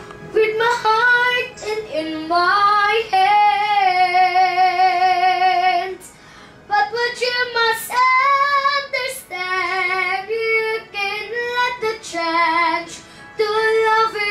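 Female voice singing a slow melody, holding long notes with wide vibrato, with a short pause about six seconds in.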